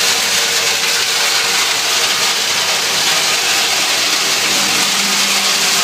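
Woodchip blower trailer running, blowing woodchip through its delivery pipe with a steady, loud rushing noise, over the steady hum of a tractor engine.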